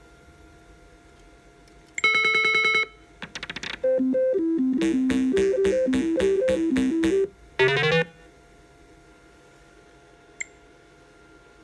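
IGT Game King video slot machine playing its electronic game sounds: a fast run of beeps, a short falling glide, then a beeping tune while the reels spin, ending in a quick rising run of tones. A single sharp click about ten seconds in.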